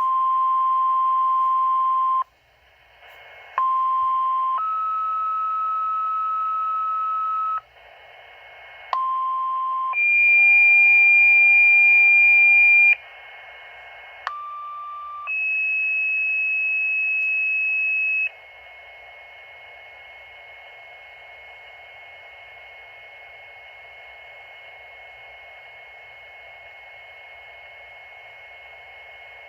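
Fire department dispatch paging tones over a radio scanner. A steady tone lasts about two seconds, then come three two-tone pages, each a short tone followed by a longer, higher one. After that the channel is left open, with hiss and a faint steady tone.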